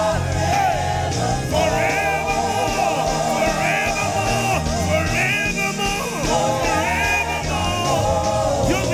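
Live gospel worship song: singers holding long notes with vibrato over a band's bass and drums.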